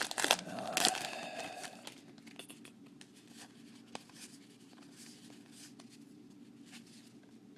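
Trading-card pack wrapper crinkling and tearing open through the first second or so, then quiet handling with a few faint ticks as the cards are leafed through.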